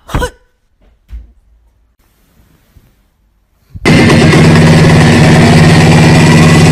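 A cat purring loudly and steadily, close to the microphone, starting suddenly about four seconds in after a brief sound near the start and a few seconds of near quiet.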